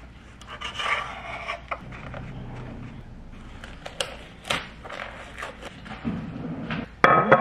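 A chef's knife slicing and scraping through raw chicken breast against a bamboo bowl, with scattered clicks, then the rubbing of nitrile gloves being pulled off. A short, louder clatter comes near the end.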